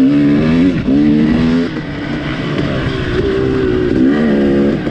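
Off-road motorcycle engine revving, its pitch climbing, holding and dropping a few times as the throttle is opened and closed.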